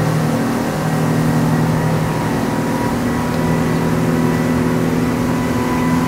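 Tour speedboat's engines running steadily at cruising speed, heard from aboard, with wind and rushing water over the drone; the engine pitch shifts slightly under a second in.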